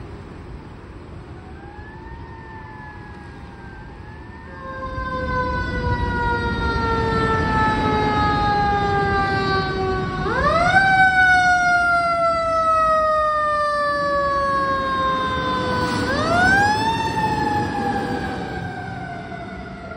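Fire engine siren winding up and then sliding slowly down in pitch, three times, the second and third climbs sharp and loud. A heavy engine rumbles underneath, getting louder about a quarter of the way in as the apparatus draws near.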